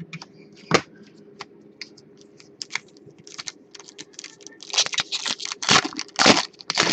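A few light clicks as trading cards are handled. Then the shiny plastic wrapper of a hockey card pack crinkles and tears open, in sharp crackles that come thick and loud over the last two seconds.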